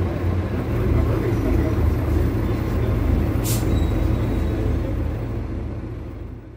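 Scania K250UB city bus's rear-mounted inline-six engine running steadily, heard from inside the bus. A short hiss of air comes about three and a half seconds in. The sound fades out near the end.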